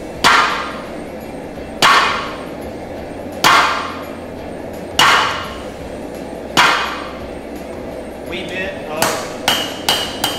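Hand hammer striking a hot 1095 steel knife blank on an anvil. Five heavy blows come at an even pace about a second and a half apart, each ringing briefly. Near the end a quicker run of lighter taps follows.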